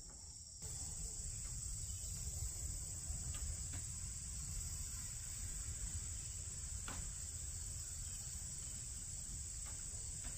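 Steady high-pitched drone of insects chirping, louder from about half a second in, over a low rumble, with a few faint light clicks.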